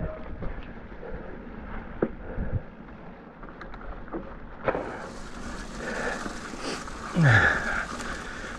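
Specialized Fuse hardtail mountain bike rolling over a wet, rooty trail: steady tyre and trail noise with scattered sharp knocks and rattles from the bike. About seven seconds in comes a louder burst with a short low sound falling in pitch.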